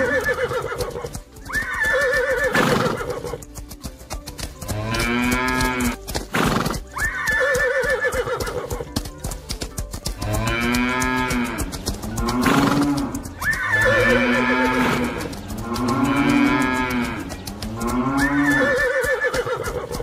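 Repeated farm-animal calls, cow moos and horse neighs, about one every two seconds, with sharp clicks between them.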